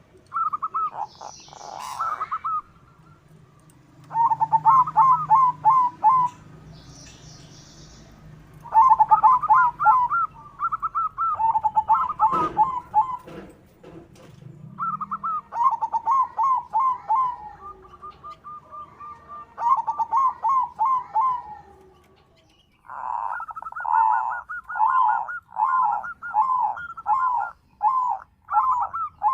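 Zebra dove (perkutut) cooing: repeated bouts of quick staccato notes with short pauses between, ending in a longer, steadier run of notes. Faint high chirps of other small birds come in near the start.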